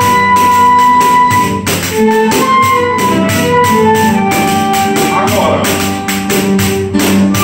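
Small acoustic ensemble playing a tune: transverse flute and violin carry the melody over strummed and plucked acoustic guitars, with a pandeiro keeping a steady beat. The melody opens on a long held note, then moves on.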